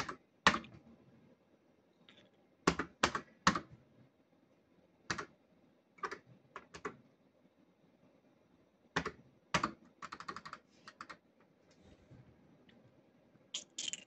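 Fruit machine push-buttons clicking as they are pressed: about fifteen sharp clicks at uneven gaps, with a quick run of small clicks about ten seconds in.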